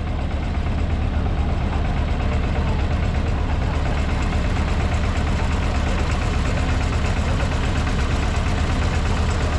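A combustion engine idling steadily with a deep, even rumble.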